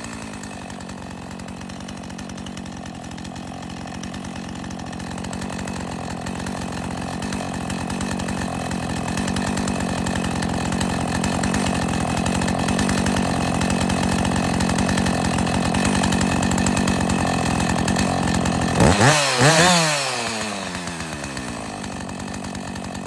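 Classic two-stroke chainsaw idling, its sound gradually growing louder. About 19 seconds in the throttle is blipped twice in quick succession, the engine revving up and dropping back to idle each time.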